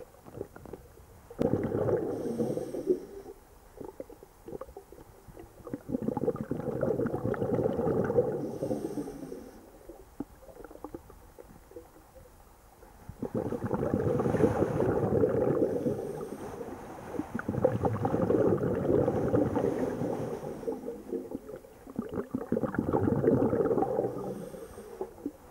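A diver breathing underwater: rumbling bursts of exhaled bubbles, five in all, each lasting two to three seconds with quieter gaps between breaths.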